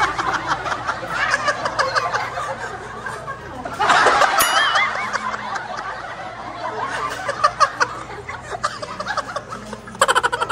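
A group of women laughing together, with the laughter swelling loudest about four seconds in.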